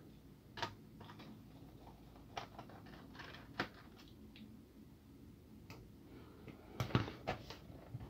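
Faint, scattered clicks and taps of a small screwdriver and screws against a laptop's plastic bottom case, with a cluster of louder knocks near the end.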